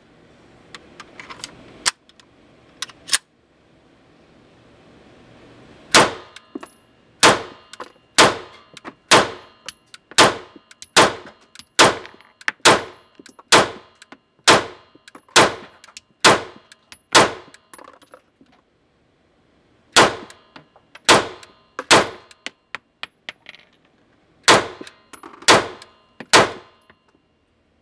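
CZ P-09 pistol firing a steady string of single shots about one a second, thirteen in a row, then after a short pause six more, each with a metallic clack of the slide cycling. A few light clicks of handling come first.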